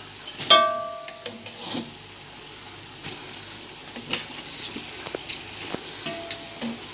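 Sugar syrup cooked with oil and milk bubbling and sizzling in an aluminium pot. A metal utensil clangs against the pot about half a second in and rings briefly, with a few lighter clicks later.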